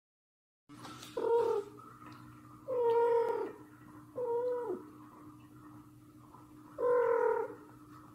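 Cat meowing four times, each call under a second and bending down in pitch at its end, the second and fourth the longest, over a faint steady hum.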